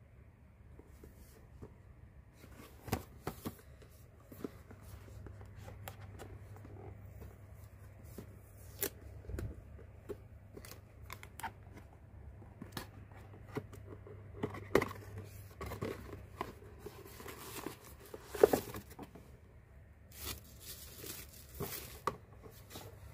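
Hands handling a cardboard box and a thin plastic bag: scattered taps, knocks and scrapes of cardboard, with bursts of plastic rustling in the second half.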